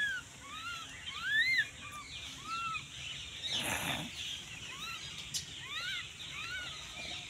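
Several birds calling around one another, a steady run of short chirps that each rise and fall in pitch, about two a second. A brief rushing noise about halfway through.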